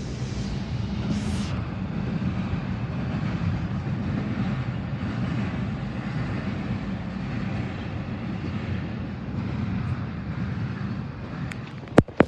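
Double-stack container freight train rolling past: a steady rumble of steel wheels on rail. A sharp knock near the end.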